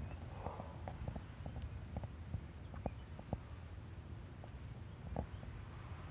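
Outdoor background noise: a steady low rumble with scattered faint clicks and ticks.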